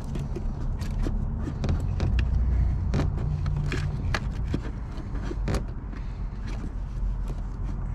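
Scattered clicks and knocks from hand work on the battery and its fittings, over a steady low hum.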